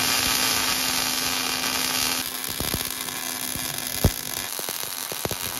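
Wire-feed MIG welder laying a bead on a steel truck frame: a steady buzzing hiss, changing about two seconds in to a sparser crackle with sharp pops.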